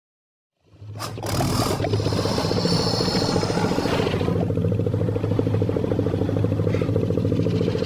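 A made-up dinosaur's growl sound effect: a steady, low, rattling rumble that pulses rapidly, starting about half a second in after a brief silence. A hissing breath lies over it for its first few seconds.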